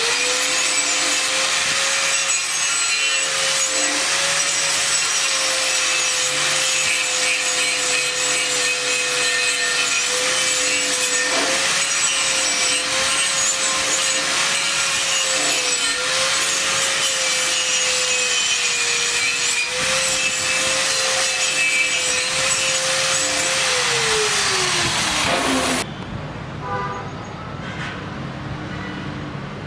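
Angle grinder running against steel for about 25 seconds: a steady motor whine over a harsh grinding hiss. The whine rises as it spins up at the start, dips slightly now and then under load, and falls away near the end before the sound cuts off.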